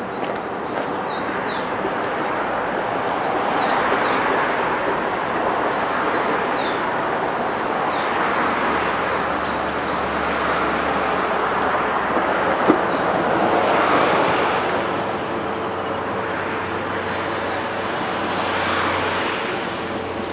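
Outdoor background rushing noise that swells and eases every few seconds, with a bird giving short, high, zigzagging calls several times in the first half. A faint steady hum comes in about three-quarters of the way through.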